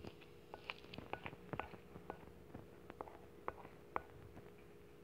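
Wooden stick stirring a sticky slime mixture in a glass bowl, giving irregular faint wet clicks and ticks, over a faint steady hum.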